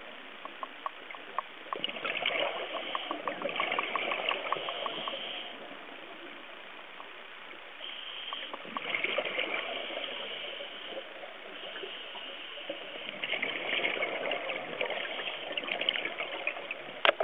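Underwater recording: a scuba regulator's exhaust bubbling three times, each burst a few seconds long, with quieter water noise between them. A run of faint rapid ticks sounds in the first few seconds.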